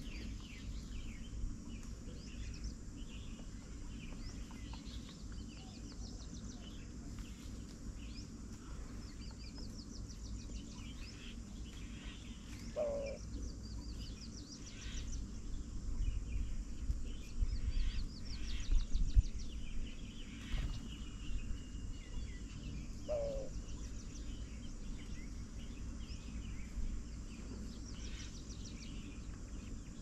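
Many small birds chirping and trilling. A lower, short falling call comes twice, about ten seconds apart. Under it runs a steady low rumble that swells to its loudest about halfway through.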